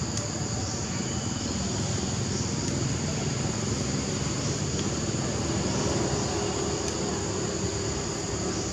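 Steady outdoor ambience: a constant high-pitched insect drone over a low, even rumble.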